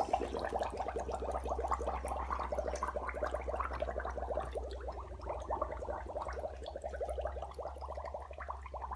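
Carbon dioxide from a baking soda and vinegar reaction bubbling steadily out of a submerged straw at the back of a plastic bottle boat, a rapid continuous gurgle of bubbles that pushes the bottle forward. A steady low hum runs underneath.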